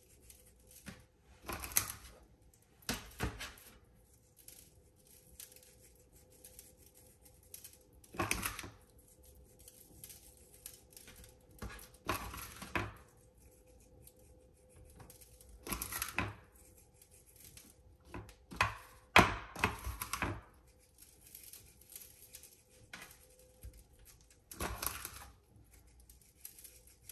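Hands handling raw tuna steaks on a metal sheet pan while rubbing dry seasoning into them: irregular soft taps, thuds and rustles a second or several seconds apart, the loudest cluster about two-thirds of the way through.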